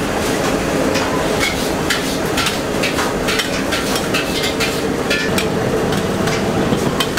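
Busy wok kitchen: metal spatulas clanking and scraping against steel woks again and again, over a steady background of frying and kitchen noise.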